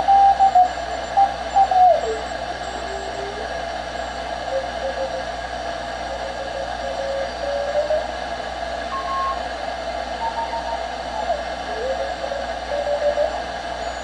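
Morse code (CW) signals on the 40-metre band heard through a Vectronics direct-conversion receiver kit, over steady band hiss. Keyed tones come and go, and their pitch slides up and down as the sensitive tuning knob is turned, working the beat note toward about 600 Hz. The keyed tone in the first two seconds is the loudest, then glides down in pitch.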